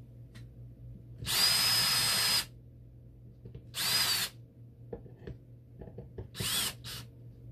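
DeWalt cordless drill/driver spinning a screwdriver bit to drive screws into the end of a small DC motor. There is one steady run of about a second, a shorter burst about four seconds in, and two quick bursts near the end, where the whine sags as the screw takes load. Light clicks of handling come between the runs.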